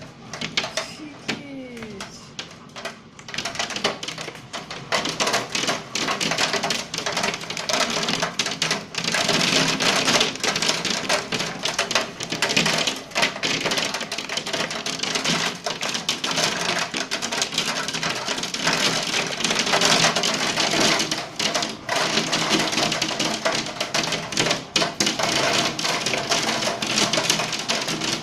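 Hail falling in a thunderstorm: a dense, rapid clatter of hailstones striking hard surfaces, lighter for the first few seconds and growing heavy from about nine seconds in.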